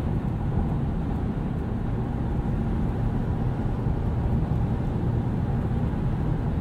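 Steady low rumble inside the cab of a 2017 Ford F-250 Super Duty with the 6.7-liter Power Stroke turbo diesel, cruising at highway speed: engine, tyre and wind noise together.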